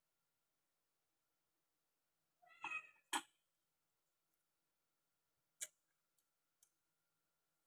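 Near silence broken by a short high-pitched cry about two and a half seconds in, followed at once by a sharp click, the loudest sound; a few fainter clicks come a couple of seconds later.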